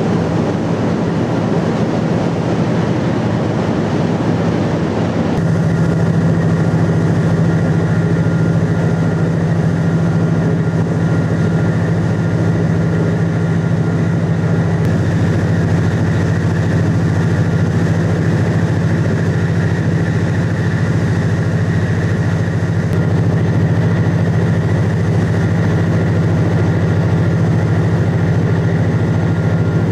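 Steady low drone of a vessel's engines under way, mixed with rushing water and wind. The drone grows a little louder about five seconds in, then holds steady.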